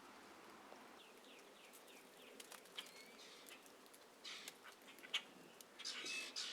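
Small birds chirping: a quick run of short falling notes about a second in and a couple of brief chirps near three seconds. Clumps of snow drop from the branches onto the ground, heard as two short soft rushes, one at about four seconds and one near the end, with scattered light ticks between them.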